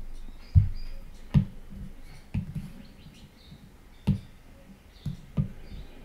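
Stylus tapping on a tablet's glass screen: about six irregular taps with a low thud, the loudest about half a second in.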